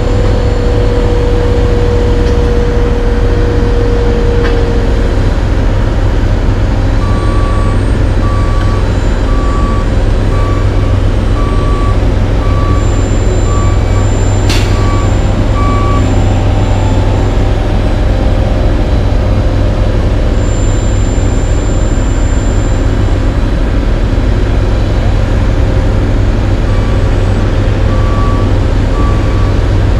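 Heavy diesel engines of a CAT AP655F asphalt paver and a dump truck running steadily while the truck tips its load into the paver. A backup alarm beeps steadily, about one beep a second, for several seconds in the middle and again near the end. There is a single sharp knock about halfway through.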